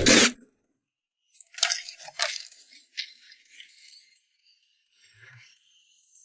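Hand work on a car during servicing. The tail end of a short power-tool burst cuts off in the first moment, then comes a second of silence, then a string of scattered clicks and crackly rustles from tools and parts being handled.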